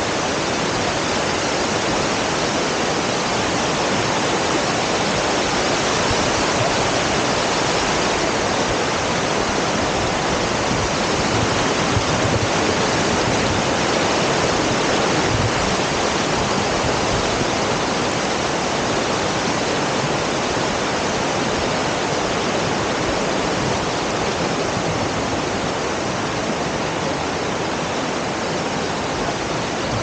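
Water of a rocky river rushing and splashing down small cascades close by, a steady, even rush with no let-up.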